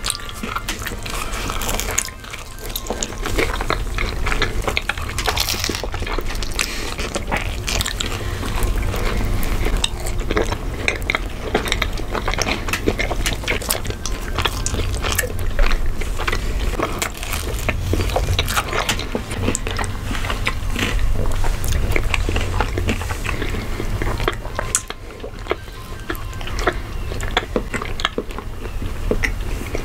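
Close-miked mukbang eating sounds: bites and chewing of soft foods such as pizza and ice cream sandwiches, made up of many short wet mouth clicks and crackles, with a few dish clinks.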